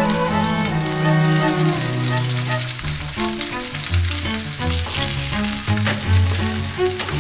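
Hanwoo beef steaks and a halved onion sizzling in hot beef fat in a frying pan, a steady frying hiss. Instrumental background music plays over it.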